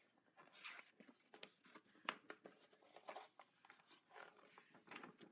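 Faint, irregular crinkling and tapping of paper as a large folded paper poster is unfolded and handled.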